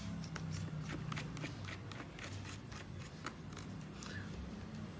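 Small screwdriver turning the size-5 star (Torx) screws out of the bottom panel of an ASUS ZenBook Pro UX550VE laptop: a run of faint, irregular clicks and scrapes of the bit and screws. A low steady hum sits underneath.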